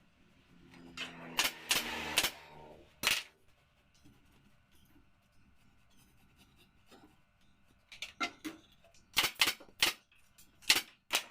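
Sharp, quick impacts from upholstery work on a sofa frame, about a dozen in small clusters: several in the first three seconds, then a run of snaps in the second half after a quiet gap. A brief rustling sound comes with the first few.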